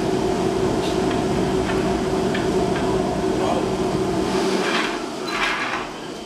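Gong-forging workshop: a steady hum and low rumble with a few light metallic taps, which drops away about four seconds in, followed by two short bursts of hissing.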